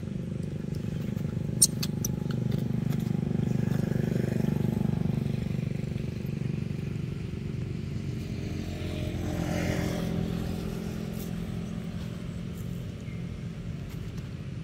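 Low, steady drone of a nearby motor vehicle engine. It swells twice, the second time with a pitched hum as it passes about ten seconds in. A single sharp click comes just under two seconds in.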